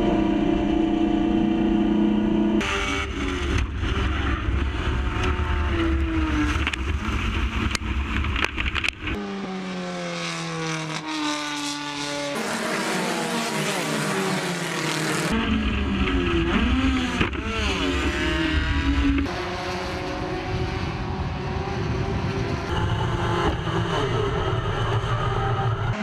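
Touring race car engines at high revs, accelerating and passing by, their pitch climbing and dropping through gear changes. The sound changes abruptly several times, about every four to six seconds.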